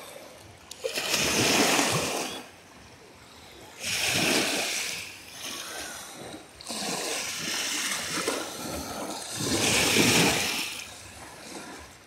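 Small Lake Ontario waves washing up over a sandy shore, each wave surging in with a splash and draining away, four times in a loose rhythm a few seconds apart.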